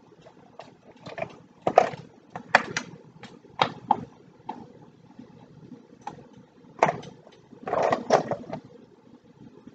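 Irregular clicks and knocks of raw blue crab pieces being handled in a plastic bowl and set into a skillet of sauce, with several louder clatters of shell against bowl and pan.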